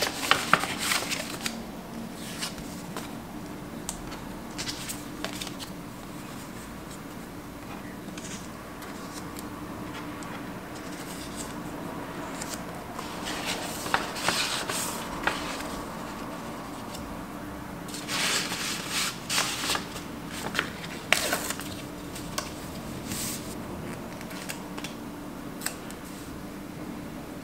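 Kraft paper envelope and paper sticker sheets being handled: rustling, sliding and crinkling in several spells, busiest near the start, around the middle and about two-thirds in, over a steady low hum.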